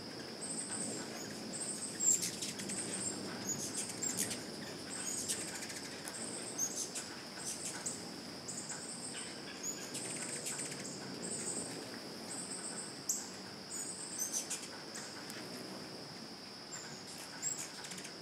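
Hummingbirds hovering and darting at feeders, their wings humming, with short squeaky chip calls now and then. Behind them runs a steady, high insect drone, with a higher insect call pulsing about once a second.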